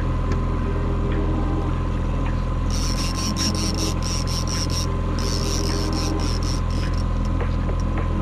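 Boat's outboard motor running steadily at trolling speed. From about three seconds in, a fishing reel clicks rapidly in quick runs as line is wound in on a fighting fish, pausing briefly midway and stopping shortly before the end.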